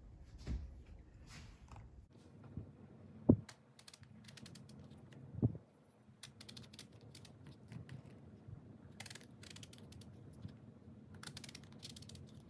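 Handling noises: three short low thumps, the loudest a little over three seconds in, among scattered light clicks and rustles.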